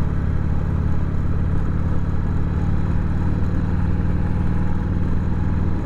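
Harley-Davidson Sportster's V-twin engine running steadily at cruising speed, with the rush of wind and road noise of the ride.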